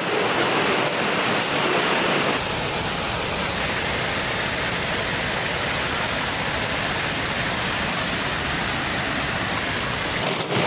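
Steady rushing noise of a heavy storm downpour and running water. It changes abruptly about two seconds in and again near the end.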